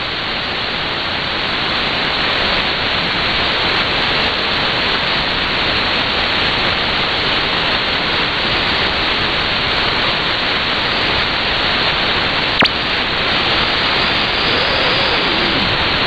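Shortwave receiver static: a steady hiss from an SDR in synchronous AM mode tuned to 17640 kHz, cut off above about 4.5 kHz by the receiver's filter. A single sharp click comes about three quarters of the way through.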